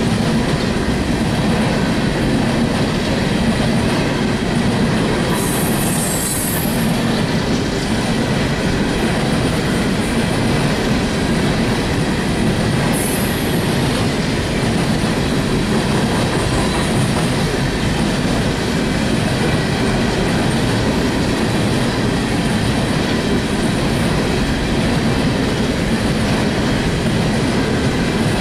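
A train passing close by: a steady, loud rumble of railcars running over the track. Two brief high-pitched squeals come about six and thirteen seconds in.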